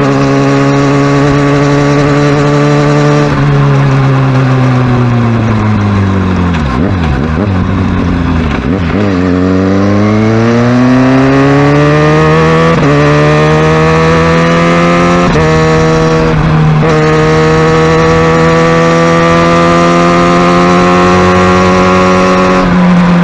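Kawasaki Ninja ZX-6R inline-four engine on the move. Its note holds steady, then falls away as the bike slows, and climbs again as it pulls off. Brief breaks in the climb are gear changes, and it then settles into a steady cruise.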